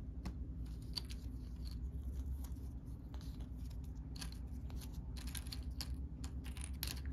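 Small plastic game pieces being handled: scattered light clicks and rustles over a low steady hum.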